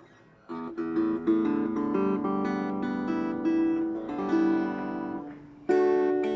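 RJ Acousticaster acoustic-electric guitar being played: a run of picked notes starting about half a second in and dying away near five seconds, then a fresh chord struck near the end.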